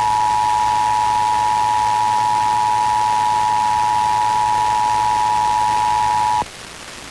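The Emergency Alert System two-tone attention signal (853 Hz and 960 Hz sounded together), received off the air from an FM radio station. It holds one steady, loud tone and cuts off about six seconds in, leaving steady radio hiss. It is the alert tone that comes just before the spoken message of a required monthly test.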